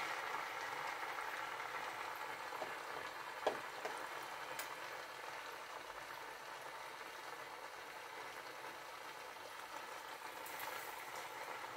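Potato koftas deep-frying in hot oil: a steady bubbling sizzle that slowly fades and picks up again slightly near the end, with a light click about three and a half seconds in.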